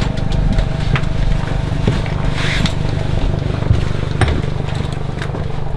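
Steady cabin drone of a twin-turboprop aircraft's engines and propellers, with scattered sharp clicks and clinks of parachute harness gear being handled.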